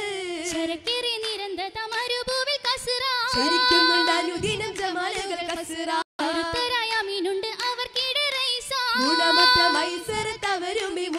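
Female voices singing an oppana song in Mappila style, with sharp hand claps scattered through the singing. The sound cuts out completely for a split second about six seconds in.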